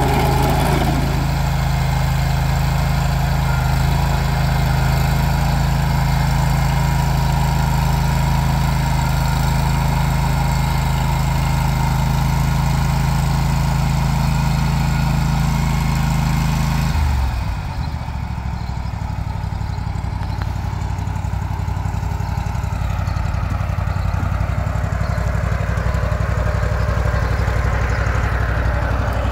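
Engine of a Ditch Witch 1820 walk-behind chain trencher running steadily, then throttled down to a lower, slower idle about two-thirds of the way through.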